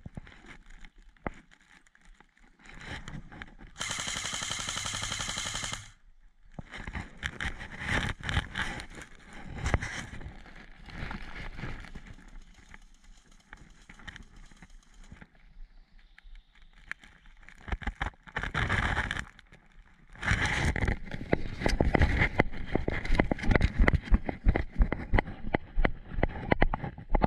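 Airsoft electric rifle firing a full-auto burst of about two seconds, about four seconds in, and a shorter burst near the end, followed by quick footsteps rustling through grass and undergrowth.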